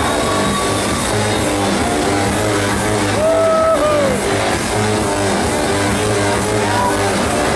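Loud electro house music over a nightclub sound system: a distorted, guitar-like synth riff repeats over a steady bass beat. A sliding high tone cuts through about three seconds in.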